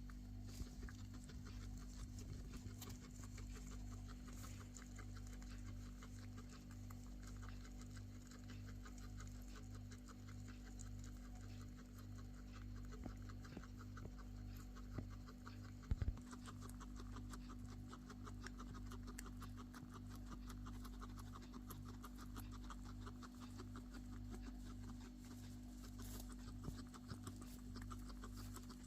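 Guinea pig coughing and choking: a faint run of rapid short clicks that grows denser in the second half. A single sharp knock comes about halfway.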